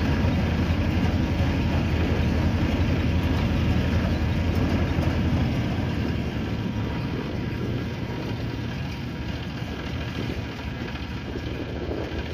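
Tractor engine running steadily, driving a groundnut thresher threshing the peanut harvest: a continuous heavy mechanical rumble that gets a little quieter after about six seconds.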